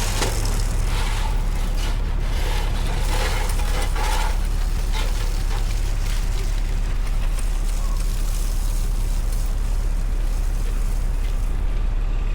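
Street traffic on a snowy city avenue: a steady low engine rumble from trucks and cars under a hiss of passing vehicles. The hiss thins near the end.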